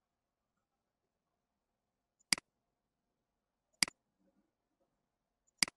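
Three sharp computer mouse clicks, about a second and a half apart, each a quick press followed at once by a softer release, with near silence between them.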